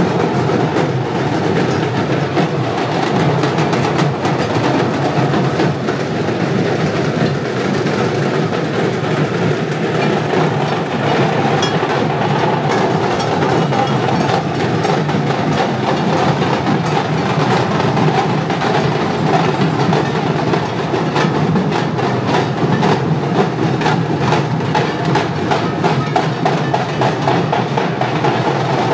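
Loud, steady procession music dominated by percussion, with rapid, dense drum strikes.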